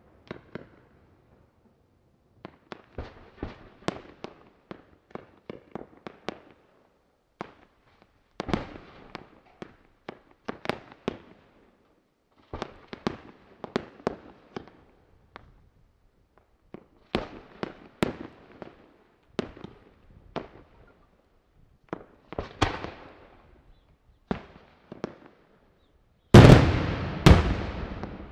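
Daytime aerial fireworks shells bursting in quick clusters of sharp, echoing bangs, with short pauses between the clusters. Near the end a dense, much louder barrage of bangs begins.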